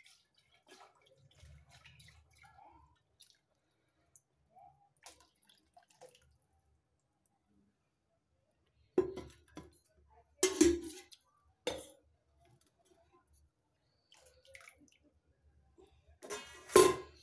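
Metal cookware clanking: a steel spatula and pot knocking against a steel kadhai, with a few sharp knocks about halfway through and a louder ringing clatter near the end. Faint drips and ticks fill the gaps.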